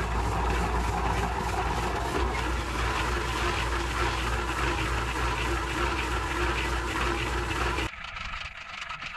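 A motor running steadily with a low hum, cutting off abruptly a little before the end.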